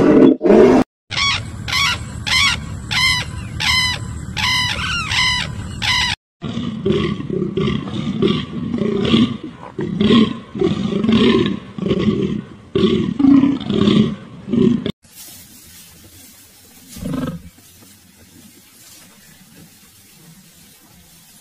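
A run of animal calls, changing from one animal to the next: first fast repeated high calls, then repeated calls with low and high parts about two a second, then much quieter with a single short call.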